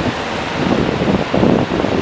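Wind buffeting the microphone in uneven gusts over the noise of passing street traffic.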